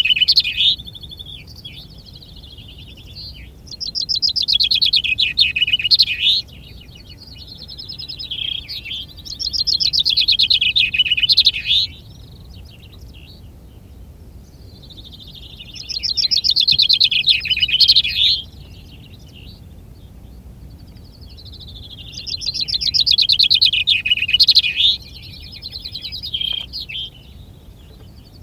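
Male common chaffinch singing its contest song over and over: about five full song phrases, each a rapid trill that grows louder and ends in a flourish, spaced about five to six seconds apart.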